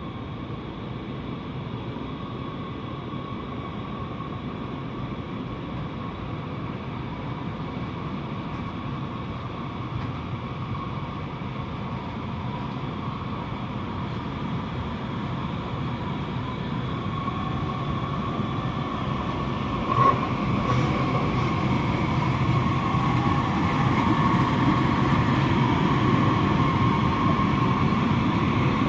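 Train running with a steady rumble and a faint steady whine, growing gradually louder; a single short knock about two-thirds of the way through.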